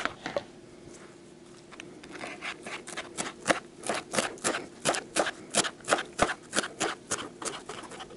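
A kitchen knife chopping fresh dill on a plastic cutting board: a steady run of quick knocks, about four a second, starting about two seconds in.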